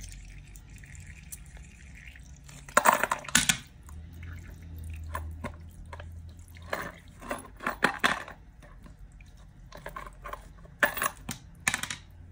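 Wet squelching and splashing as a soaked plush toy is squeezed and dunked in a bowl of water, in several short bursts.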